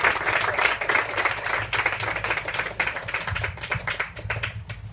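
Audience applauding, the clapping thinning out to scattered claps and fading toward the end.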